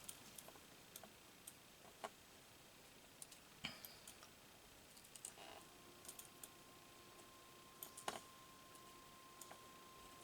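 Near silence, broken by faint scattered clicks and taps of small craft pieces being handled and put away on a table. A faint steady hum comes in about halfway.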